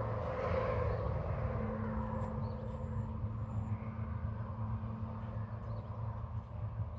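Steady low rumble of a distant engine, with a steady hum coming in about one and a half seconds in.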